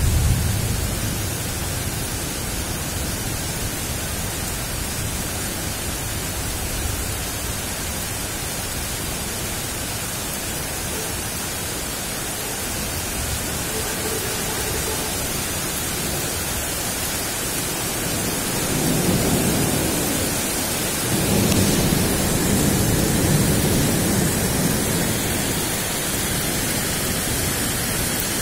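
Thunder rumbling over a steady hiss of rain: a short low roll at the start, then two long rolls about two-thirds of the way through.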